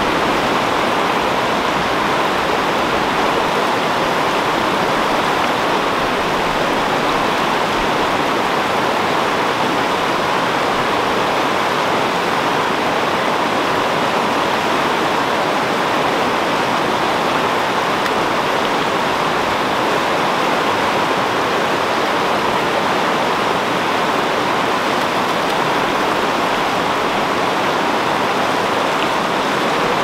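Swift river water rushing steadily over boulders in whitewater rapids, an even unbroken roar.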